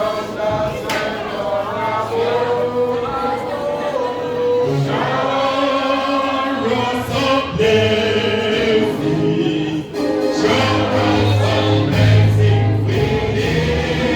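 Gospel music with a choir singing over a sustained low bass accompaniment.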